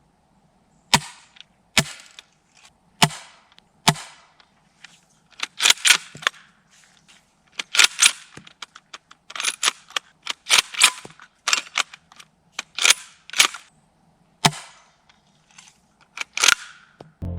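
Gas-powered Kar98K bolt-action airsoft rifle being fired and cycled: a string of sharp cracks and clacks at irregular intervals, some single and some in quick clusters.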